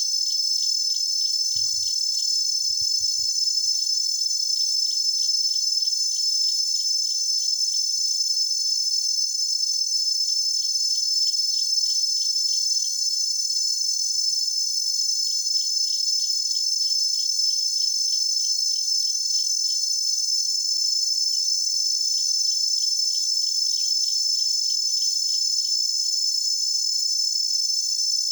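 Dense chorus of cicadas making a steady, high-pitched buzz. A second, pulsing insect chirp comes and goes over it in spells of several seconds.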